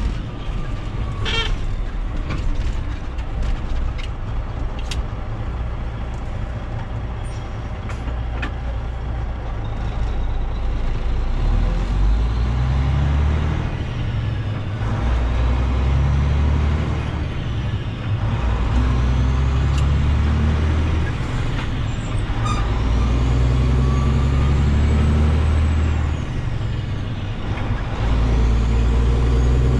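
Semi truck's diesel engine running under way, its engine note stepping up and down in pitch as it changes speed and gears.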